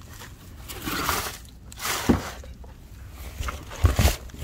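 Rustling in dry leaves, weeds and dirt, with dull bumps of the phone against the ground, the loudest a close pair of thumps near the end.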